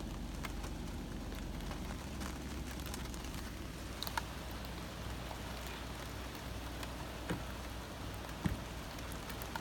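Steady rain pattering on a car, heard from inside it, over a low steady rumble. A few sharp knocks come through, the loudest near the end.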